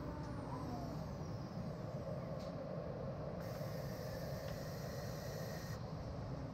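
CNC router machining centre running with a steady mechanical noise. It gives a brief knock about two and a half seconds in, then a hiss of compressed air lasting about two seconds from just past midway.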